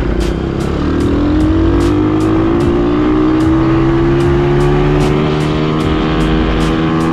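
Quad bike engine pulling under throttle, its pitch rising steadily from about a second in as the bike gathers speed. A music track's steady beat runs faintly over it.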